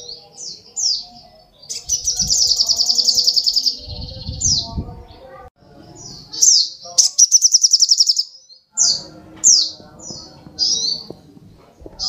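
Olive-backed sunbird singing: short, sharp down-slurred chirps and two long, very fast buzzy trills, one about two seconds in and one about six and a half seconds in.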